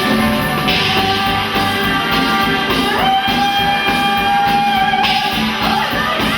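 Live pop-rock band music with a female vocalist singing; she holds one long note through the middle, over guitar and a steady backing.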